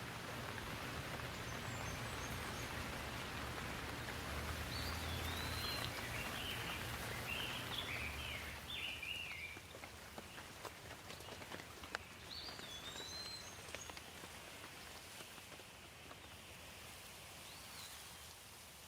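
Rain falling on leaves, a steady patter that eases about halfway through, with scattered separate drops after that. A bird gives short rising-and-falling whistled calls several times over the rain.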